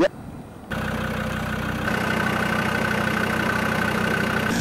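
A brief sharp sound with a quick upward sweep, then an engine running steadily at an even, unchanging pitch that cuts in abruptly under a second in, with a thin high whine joining it about two seconds in.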